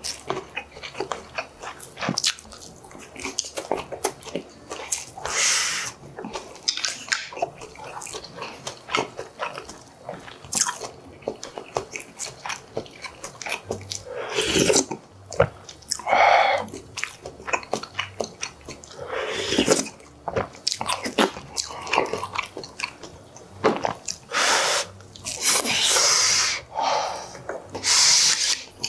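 Close-up eating sounds: chewing and slurping mouthfuls of braised pork and kimchi stew, broken by short clicks of chopsticks and a spoon against the dishes.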